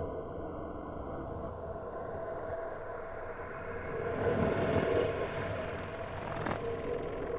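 Electronic drone soundscape: a steady low hum with a few held tones, a hissing swell that builds about halfway through and fades, and a single sharp click later on.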